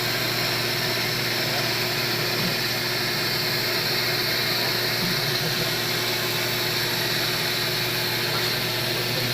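A CNC machine running with a steady mechanical hum: a constant low drone under a faint high whine, with no change in pitch or level.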